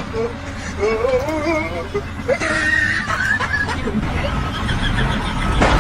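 People's voices with some laughter, over music.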